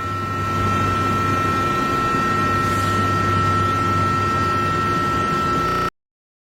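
A steady mechanical hum with a constant high whine over it, unchanging until it cuts off suddenly near the end.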